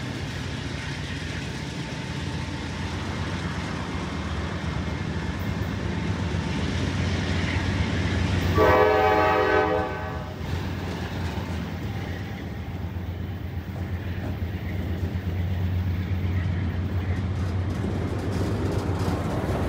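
Diesel freight train rolling past close by: CSX locomotives and autorack cars with a steady low rumble and the clatter of wheels on rail. A locomotive horn blows once for about a second and a half near the middle.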